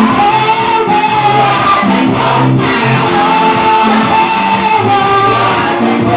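Live gospel worship music: a sung melody in long held notes over a steady bass line and accompaniment.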